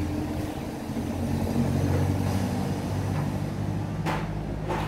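An engine running at low speed, its pitch wavering slightly, with two knocks near the end.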